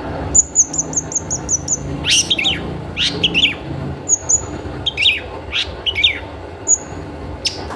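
Long-tailed shrike (cendet) calling as a lure recording: a quick run of about eight thin, high notes, then harsh falling notes repeated several times, with more high chirps between them. A steady low hum runs underneath.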